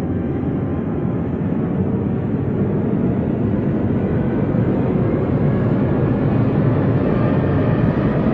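A steady low rumbling drone, slowly growing louder.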